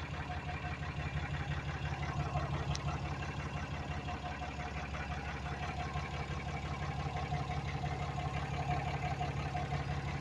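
2018 Ram 3500 pickup engine idling steadily with its freshly replaced fuel lines no longer leaking.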